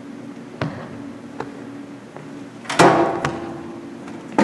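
A few sharp knocks or clicks and one louder thump about three seconds in, over a steady low room hum.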